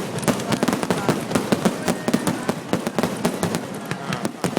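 Fireworks crackling: a rapid, dense string of sharp pops and bangs.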